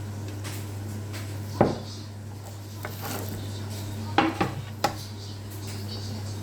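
A few sharp knocks and clinks of hard objects handled on a tabletop: one about a second and a half in, then a quick cluster of three a little past the middle, over a steady low hum.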